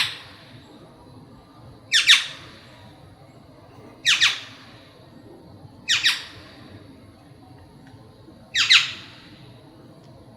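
Black-naped oriole giving a harsh, squawking call, each a quick double note, five times at roughly two-second intervals.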